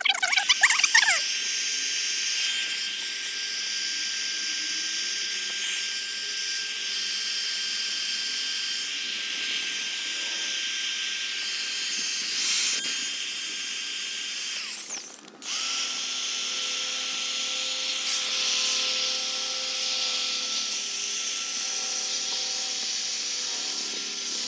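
Handheld electric air pump running steadily with a high whine, blowing air into the chambers of an inflatable chair. About fifteen seconds in it stops briefly and starts again, its whine a little lower in pitch afterwards.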